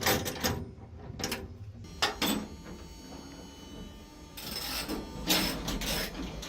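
A wrench working a seatbelt mount bolt: a few sharp metal clicks in the first couple of seconds, then scraping and handling noise near the end.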